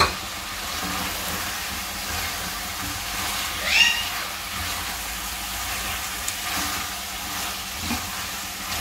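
Sliced potatoes and masala sizzling in an aluminium pot as a silicone spatula stirs them. A short high squeal that rises in pitch cuts through a little under four seconds in.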